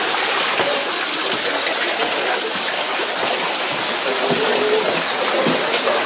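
Fast-flowing stream rushing, a steady loud wash of water with no let-up.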